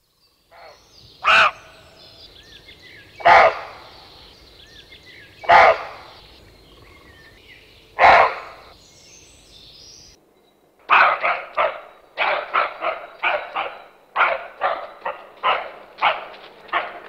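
An animal barking: four single loud barks about two seconds apart, then after a short break a quicker run of barks, about three a second.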